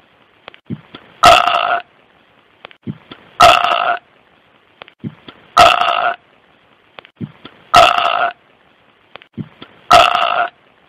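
A burp repeated over and over as an identical loop, one short burp about every two seconds, five in all, each preceded by a few faint clicks. The loop cuts off just at the end.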